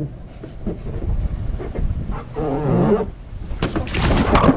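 Rushing wind and water noise on a handheld camera's microphone during a ride down a backyard water slide, with a wavering child's yell about halfway through and a burst of splashing near the end.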